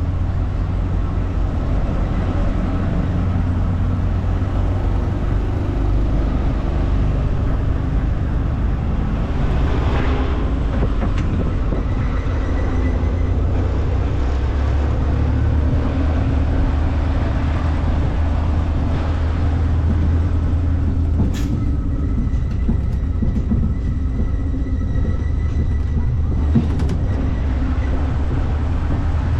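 Small passenger ride train running steadily, a continuous low rumble, with one sharp click about 21 seconds in.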